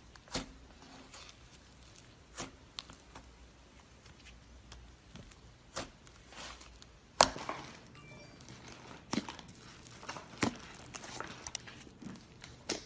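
Hands kneading and pressing soft slime, giving scattered small pops and crackles as trapped air squeezes out, with one much louder sharp pop about seven seconds in.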